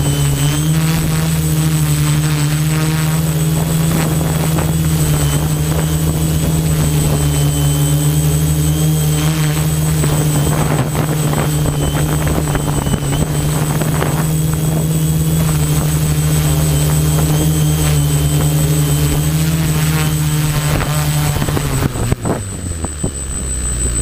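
Quadcopter drone's electric motors and propellers buzzing steadily in a low hover, heard from a camera mounted on the drone, with a thin high whine above the buzz. About two seconds before the end the buzz wavers and drops in pitch as the drone touches down and the motors spin down.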